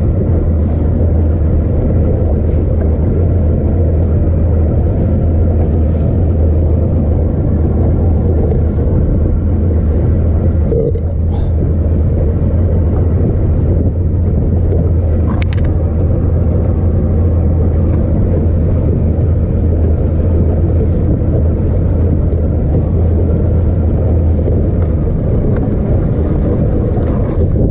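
200 hp outboard motor running the boat under way, a steady low drone mixed with wind and water rush. The lowest part of the drone eases a couple of seconds before the end.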